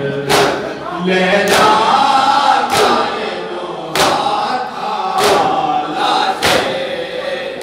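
A group of men chanting a noha in unison behind a lead reciter, with rhythmic matam: open-handed chest beats landing about every 1.2 seconds, six of them here, keeping time with the lament.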